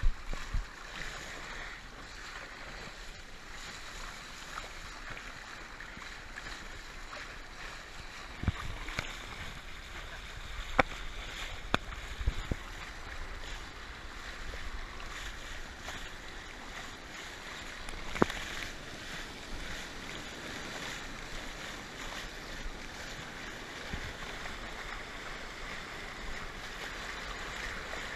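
Sea water rushing and splashing around a kayak riding small surf, heard from just above the waterline, with a few sharp splashes in the first half and one more a little past the middle.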